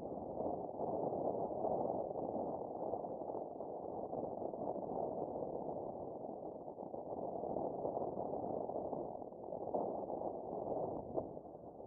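Airflow rushing over the microphone during a paraglider flight: a steady rush of wind noise that swells and eases.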